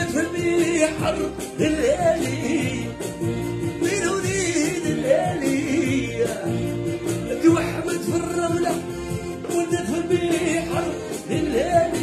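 A man singing a raï song in a natural, unprocessed voice with ornamented, wavering runs, over instrumental accompaniment with a steady beat.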